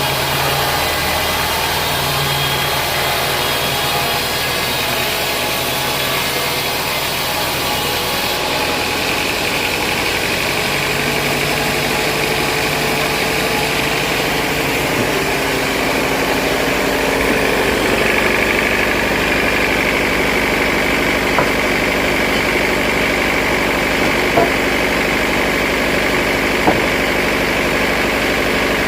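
Vertical band sawmill running steadily: a continuous machine drone with a held whine, changing in character about a third of the way through. Three short sharp clicks sound in the second half.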